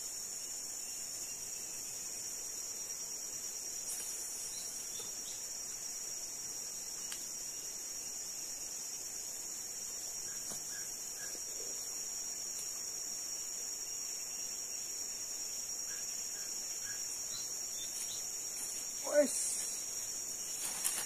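Steady, high-pitched drone of insects chorusing in riverside forest, unbroken throughout. Near the end a man's voice gives a short, loud exclamation.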